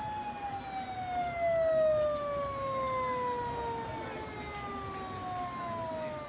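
Police car siren wailing: the tone holds high, then slowly falls in pitch over about five seconds.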